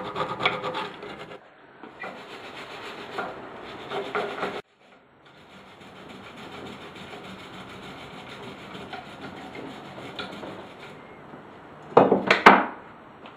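Old gasket being scraped off the metal mounting face of the water pump base on a Mercury outboard's gearbox: repeated rough scraping strokes, broken off briefly about four and a half seconds in. Near the end, a short clatter of a few loud knocks.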